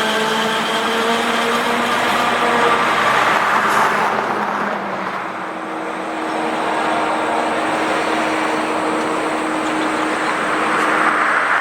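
Highway traffic going by: engine and tyre noise, swelling as one vehicle passes about three to four seconds in and another near the end.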